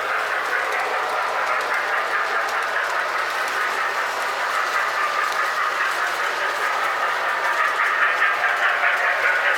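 Lionel-type O-gauge toy trains running on three-rail track: a steady whirr of motors and wheels with rapid clicking over the rail joints, growing a little louder near the end as a train comes closer.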